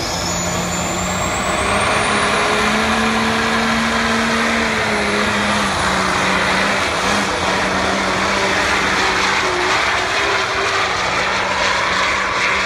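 Turbocharged Cummins diesel pickup at full throttle, hauling a pulling sled. The engine runs hard under load, and a high turbo whistle rises over the first two seconds, then holds as the truck gets louder.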